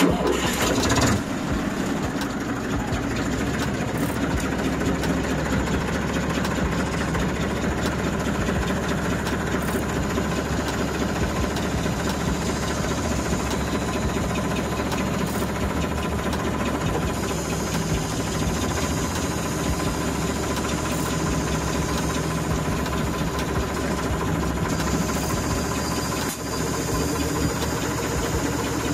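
Torpedo Deutz 45 06 tractor's diesel engine starting on the key and catching straight away, then running steadily at idle.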